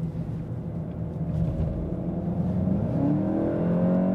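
VW Golf GTI Performance's 2-litre turbocharged four-cylinder engine heard from inside the cabin while driving, over steady road noise. About three seconds in the pitch dips briefly, then climbs steadily as the car accelerates.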